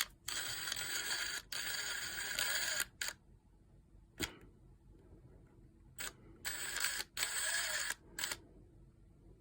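Small cordless power tool motor running in short bursts of about a second, starting and stopping abruptly several times with brief gaps between.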